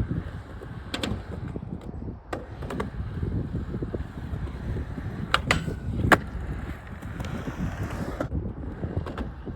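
Skateboard wheels rolling with a steady rumble, broken by several sharp clacks of the board, two of them close together about five and a half seconds in.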